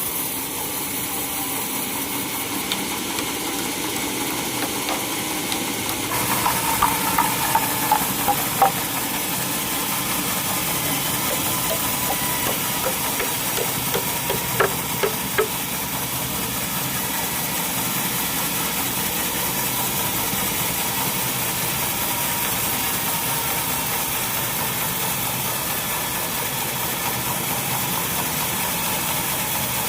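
Sawmill machinery running steadily with an engine-like drone but not cutting wood. There is a run of light clicks and knocks about 6 to 9 seconds in, and another around 12 to 16 seconds in.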